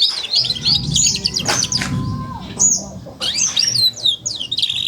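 A young four-month-old F1 canary twittering: the fast, rambling chatter of a juvenile canary still learning its song, a rapid run of high chirps and trills with a brief pause about three seconds in.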